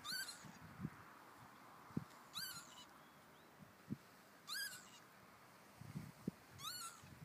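A young Clun Forest lamb bleating: four short, high calls about two seconds apart, each rising then falling. A few soft low thumps fall between the calls.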